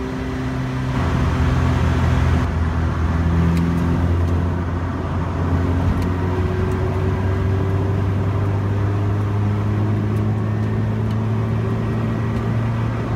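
Car engine and road noise heard from inside the cabin while driving on an open road: a steady drone whose pitch shifts a few times as the revs change.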